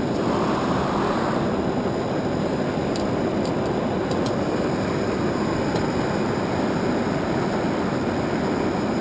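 Metal-melting furnace running steadily, a constant rushing noise, with a few faint light clicks about three to four seconds in.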